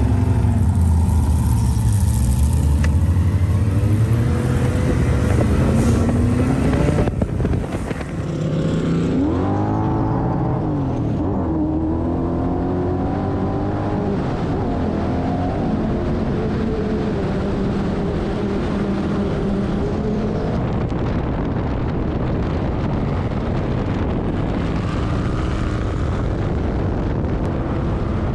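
Off-road sand car engine running hard under way. About eight seconds in the sound changes, the revs rise and fall quickly, and then the engine settles into steady running.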